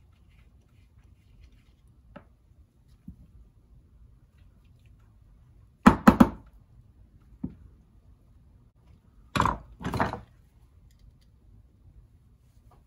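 Workbench handling during a rear-shock rebuild: shock parts and tools knocked and set down on the bench. There is a quick double knock about six seconds in, a light click, then two louder knocks about half a second apart.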